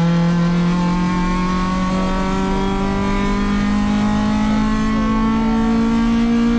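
Acura RSX-S race car's four-cylinder engine, heard from inside the stripped cabin, pulling hard down a straight in one gear. Its note rises slowly and evenly without a shift.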